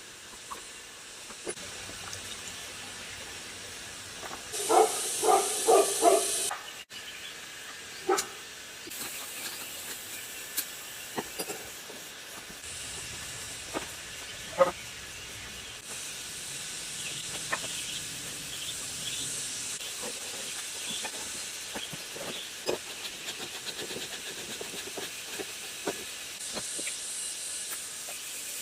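Steady hiss with scattered clicks and knocks of hand work, and a loud run of about four quick knocks about five seconds in.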